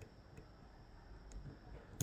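Faint, sparse clicks of small metal parts of a dismantled Ezcurra DS-10 lock being handled, with a sharper click at the very end.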